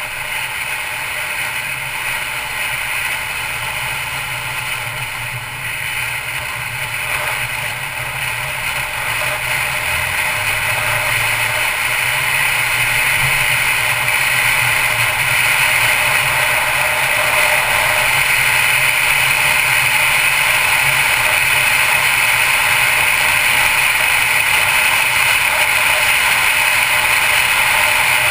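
Mercedes-Benz C250 Coupe driving on a paved road: a steady low engine hum under road and wind noise, growing louder about ten seconds in.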